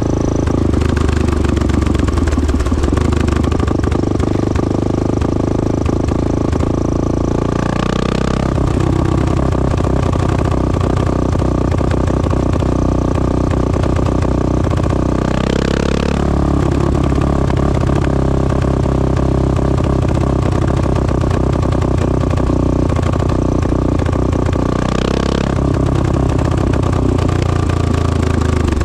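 1986 Honda XL600R's single-cylinder four-stroke engine running through a Devil stainless-steel exhaust, its note steady and then changing sharply three times: about a quarter of the way in, halfway, and near the end.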